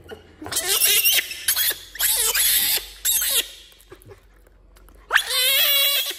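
Pet macaque crying out in four loud, high-pitched calls that bend up and down in pitch, the last and longest about five seconds in.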